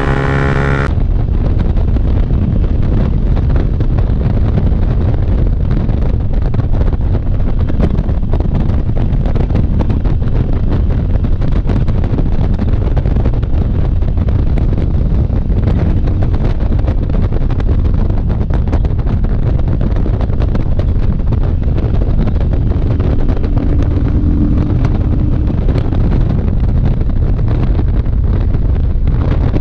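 Motorcycle riding at highway speed: wind rushing over the camera microphone, over steady engine and road noise.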